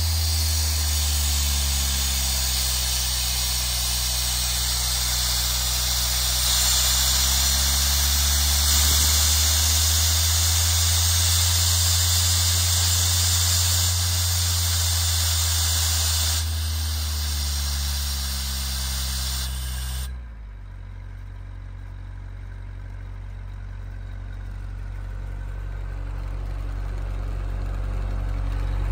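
Atlas Copco XAS 185 portable diesel air compressor running while compressed air blows out of its open service valve as a loud hiss with a thin whistle. The air is shut off about 20 seconds in, and the engine keeps running steadily.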